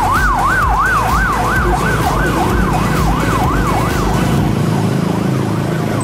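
A tour bus's telolet horn sounding a fast siren-like wail that sweeps up and down, about three times a second. It grows fainter over the last few seconds, over a low rumble of traffic.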